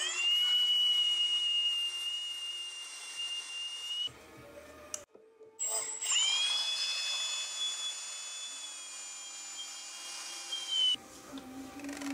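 Cordless drill driving screws through a plastic ski into a wooden support: two long runs of the motor's steady high whine, the first about four seconds long, the second starting a little under six seconds in and stopping near eleven seconds.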